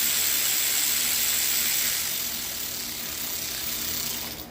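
A loud, steady spraying hiss of gas under pressure, easing slightly about halfway through and cutting off abruptly near the end.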